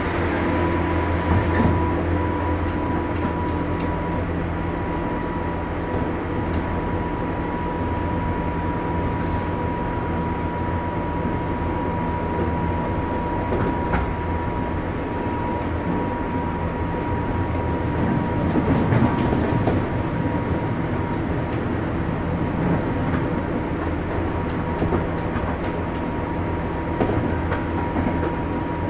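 JR West 201 series electric commuter train running, heard from inside the car: a steady low rumble with a constant high tone and occasional light clicks. It grows louder and rougher for a couple of seconds around 19 seconds in.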